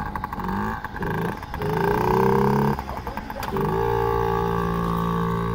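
Yamaha PW50's 49cc two-stroke single engine revving in short bursts, its pitch rising a little each time, then holding a steady note from a bit past halfway.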